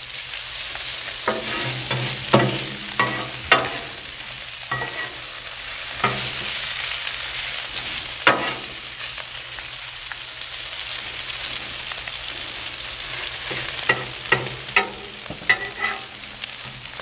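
Sliced potatoes, onions and eggs sizzling on a Blackstone flat-top steel griddle, with a metal spatula scraping and clacking on the griddle top as the potatoes and onions are stirred. The clacking comes in clusters during the first few seconds, again around the middle, and near the end, with only the steady sizzle in between.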